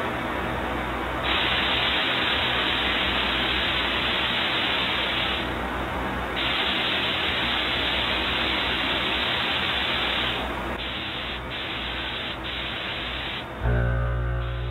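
Compressed-air paint spray gun hissing as clear coat goes onto a car body: two long passes with a short break between, then several shorter trigger bursts. Near the end a steady low hum comes in.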